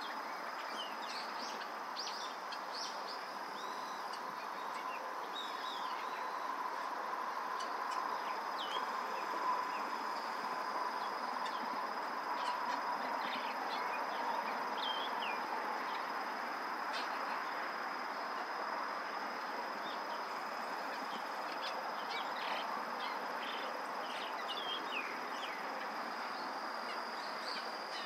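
Chinese grosbeaks (yellow-billed grosbeak) giving short, scattered chirping calls throughout, over a constant thin high tone and a steady hiss.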